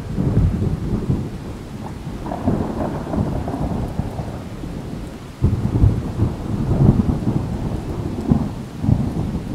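Storm wind gusting through trees with heavy rain, the gusts buffeting the microphone in uneven low rumbling surges. It gets suddenly louder about five seconds in.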